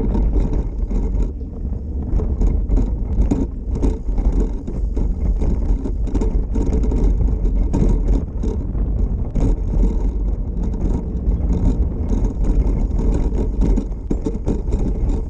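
Wind buffeting the microphone over the low rumble of a small vehicle rolling along pavement, a steady rumble with constant rapid flutter.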